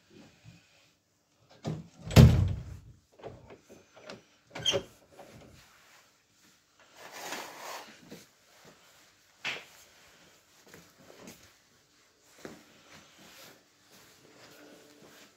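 A string of knocks and thumps in a small room, the loudest a heavy bump about two seconds in, with a stretch of rustling around seven seconds in.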